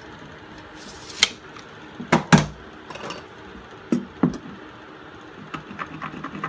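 Hand tools, a tape measure and a small metal-bladed square, being handled and set down on a plywood sheet. A handful of sharp clacks, the loudest about two seconds in, then light ticks near the end.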